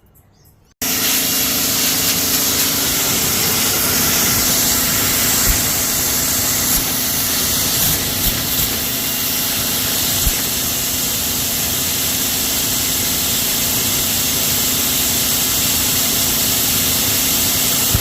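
Pressure washer running, the hiss of its high-pressure water jet over the steady hum of its motor, as aviary wire and trays are washed down. It starts abruptly about a second in and holds steady.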